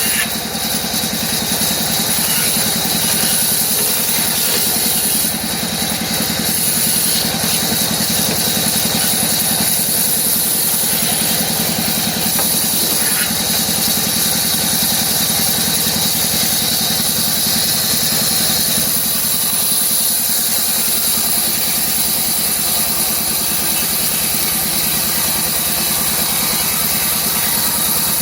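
CNC router carving wood, running steadily: a high spindle whine and cutting hiss over a low machine hum.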